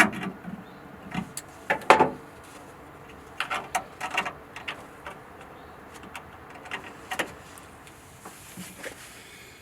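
Irregular short knocks and scrapes of work on metal, with quiet gaps between; the loudest comes about two seconds in.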